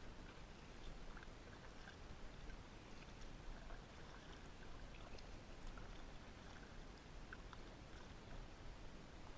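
Faint paddling sounds from a kayak: the paddle blades dipping into calm water and dripping, as scattered soft splashes and ticks over a low steady hiss.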